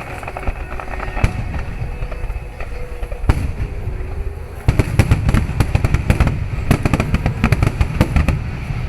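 Fireworks finale: aerial shells bursting in a continuous low rumble of booms. About halfway through, a dense barrage of rapid sharp bangs and crackles sets in and grows louder.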